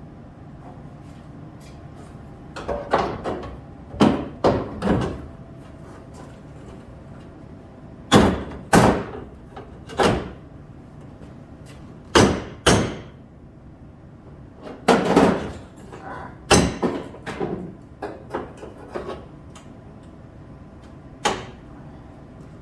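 Irregular bangs and knocks of a sheet-metal rocker panel being knocked and pushed into position on the car body, coming in clusters of a few strikes with gaps between.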